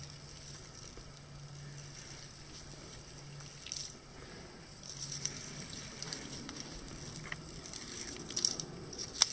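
Faint rustling and light crackling of tape being peeled off and solar screen material being handled, with a few sharper crackles near the end, over a steady low hum.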